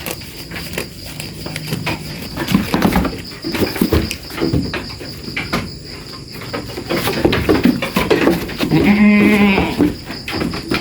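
A goat bleats once near the end, a single short call. Knocks and thuds come from the pen throughout.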